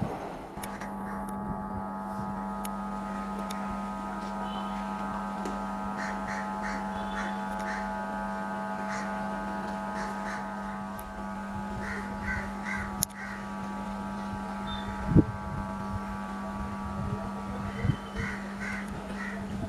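Crows cawing in three runs of several quick calls, about six seconds apart, over a steady low hum. A single sharp knock partway through.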